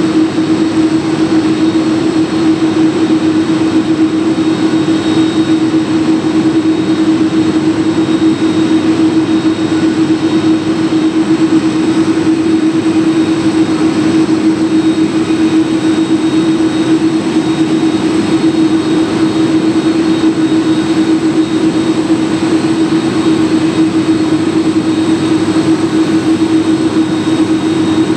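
A Boeing 747-400's jet engines running steadily, with a strong, even hum and a thin high whine over the rush of the engines.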